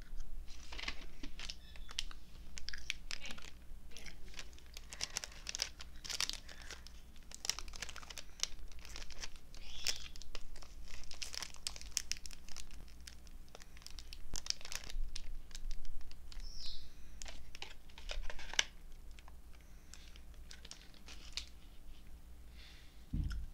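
Close-miked crinkling and rustling of jelly bean packaging being handled, with scattered small clicks as a bean is picked out and eaten.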